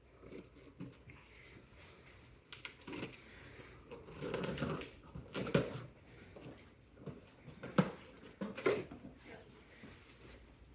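Packaging and a graduation gown being handled and unpacked from a mailed box: irregular rustling and crinkling with scattered sharp clicks and taps, the loudest a few seconds in.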